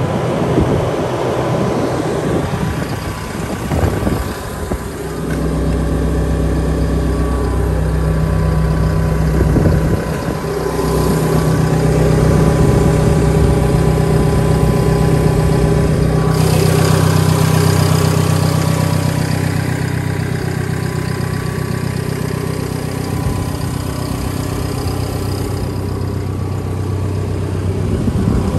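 Cat D5K2 XL dozer's four-cylinder C4.4 diesel engine idling steadily. It grows louder and fuller about five seconds in, and its tone shifts around ten and again around sixteen seconds.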